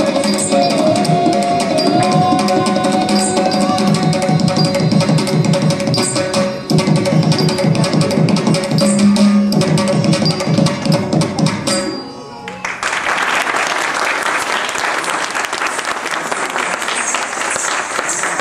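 Carnatic dance music with hand-drum rhythm and held melodic notes, ending about twelve seconds in. Audience applause follows.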